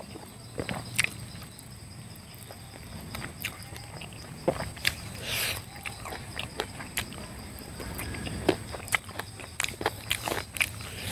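Close-up eating sounds: wet chewing and many sharp lip-smacking clicks as bites of chicken leg and rice are eaten by hand. A steady high insect drone runs behind.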